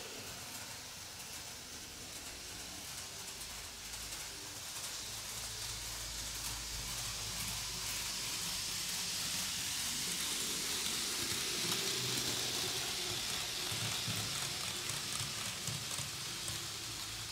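Märklin 3021 HO-scale model diesel locomotive running with a train of coaches on three-rail track: a steady hissing whir of its motor and wheels on the rails. It grows louder about halfway through as the train comes near.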